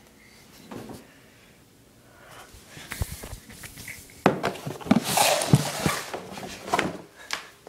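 Handling noise from a phone being swung about: a run of knocks, thumps and rustling, quiet at first, densest and loudest about halfway through, then tailing off.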